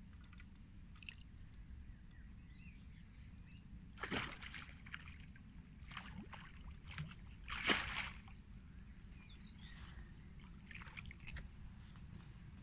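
A hooked carp splashing at the surface close to the bank as it is played, with two louder splashes about four and eight seconds in and smaller ones between, over a steady low rumble.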